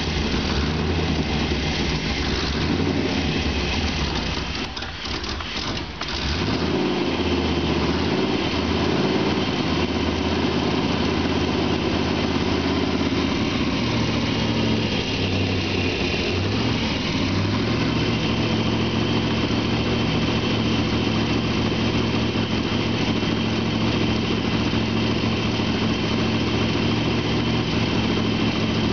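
1996 Chevy 1500 pickup's engine running, dipping briefly about five seconds in, then settling into a steady idle.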